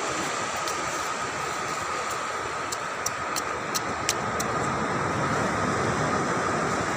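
Steady rushing outdoor noise of wind and surf on a beach, with a thin steady high tone running through it. A few short sharp clicks come around the middle.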